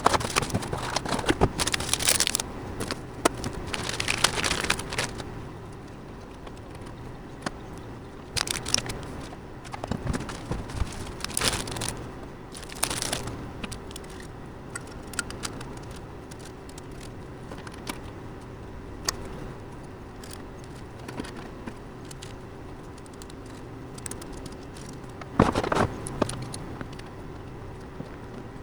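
Metal hardware and parts being handled: scattered clinks, rattles and rustling, with a louder clatter about 25 seconds in. A steady low hum runs underneath.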